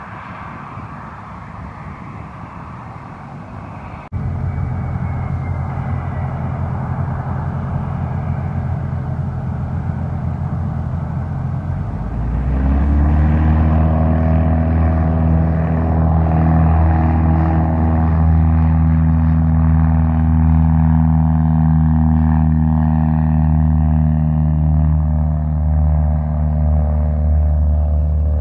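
Embraer Phenom 300 business jet's engines running at taxi, a steady whooshing hiss, cut off abruptly about four seconds in by a Cessna 172's piston engine and propeller droning steadily at low power. About twelve seconds in the engine is throttled up, its pitch rising to full takeoff power, and it runs steady and loud for the takeoff roll.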